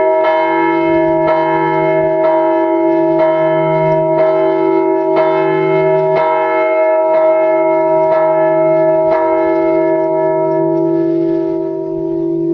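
A large church bell tolling, struck about once a second, its hum ringing on between strokes. The strokes stop about nine seconds in and the bell is left ringing, fading slightly.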